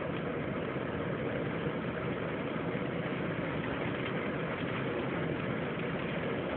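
Steady rumble inside a pickup truck's cab with the engine idling.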